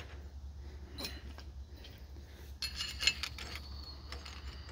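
Small steel hub parts clinking: a Ford front axle spindle nut and its pieces being taken off and handled. A single tap comes about a second in, then a run of light, ringing metal clinks from a little past halfway.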